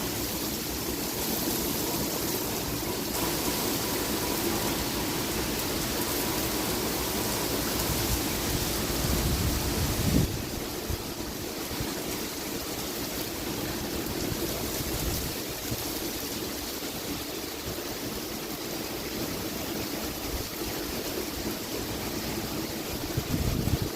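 Heavy thunderstorm rain pouring down steadily, a dense even hiss, with a brief low thump about ten seconds in and another near the end.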